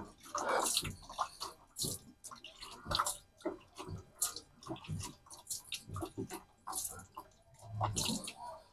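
Water splashing and dripping in short, uneven splashes.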